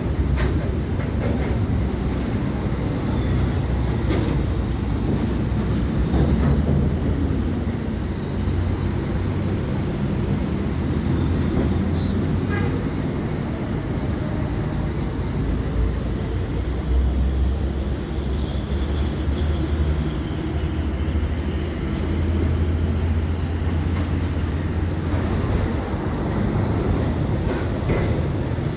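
Heavy diesel construction machinery running steadily with a deep rumble that rises and falls slightly, with a few faint knocks.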